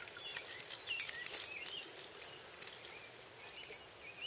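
A small bird chirping in short, high, up-and-down notes, several in the first two seconds and a few more later, over a faint steady outdoor hiss.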